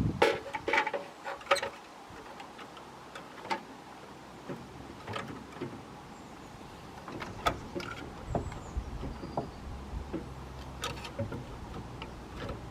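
Scattered light clicks and knocks of hand tools and plastic parts as a turn-signal lamp is fitted and screwed in beside a van's headlight. A low steady hum comes in about eight seconds in.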